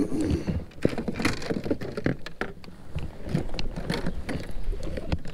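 Handling noise in a fishing kayak: irregular clicks, knocks and rustling as fishing rods and tackle are picked up and moved among the rod holders.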